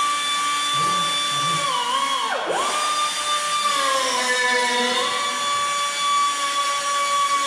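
Handheld cut-off tool running with a high, steady whine as it cuts into a steel car firewall. Its pitch sags as the wheel bites into the metal: it drops sharply and recovers about two and a half seconds in, then sags again for about a second around the middle before climbing back.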